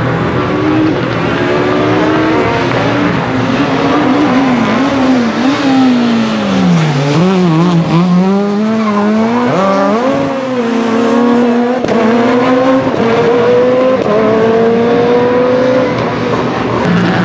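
Rally car engine slowing hard with the revs falling, then accelerating away, its pitch climbing through several gear changes.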